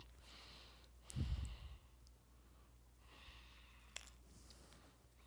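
Soft breaths close to the microphone, with a dull low thump about a second in and a single sharp click about four seconds in.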